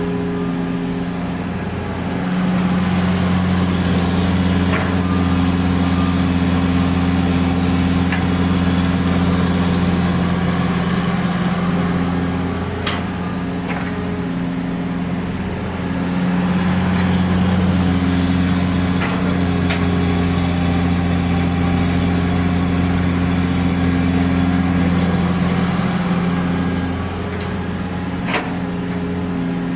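Hitachi long-arm excavator's diesel engine running steadily, its note rising under load for two long stretches of about ten seconds and easing in between as the machine works through its loading cycles. Occasional sharp knocks can be heard above it.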